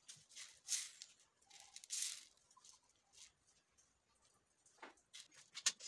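Dried green coffee beans rustling and scraping as hands sweep and spread them across a woven bamboo tray, in a few short swishes, with some sharp clicks of beans near the end.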